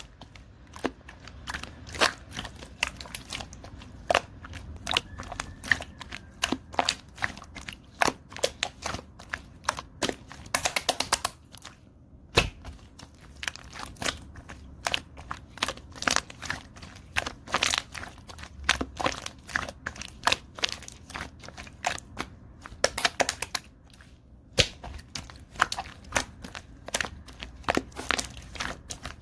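Glitter slime being squeezed, poked and stretched by hand, giving irregular sticky clicks and pops. Twice, about a third of the way in and about three quarters of the way in, the pops come in a quick crackling run.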